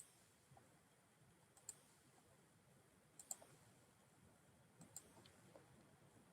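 Faint clicks of a computer mouse button, about one every second and a half, with a quick double click about three seconds in.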